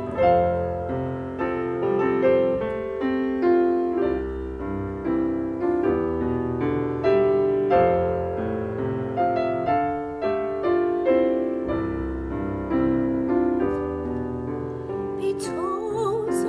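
Grand piano playing an instrumental interlude in the song's accompaniment, notes struck a few times a second. A woman's singing voice comes in near the end.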